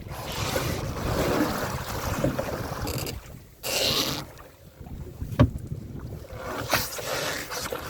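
Wind buffeting the microphone over sea water washing against a small fishing boat, with a surge of splashing hiss about four seconds in and a sharp knock on the boat about five and a half seconds in.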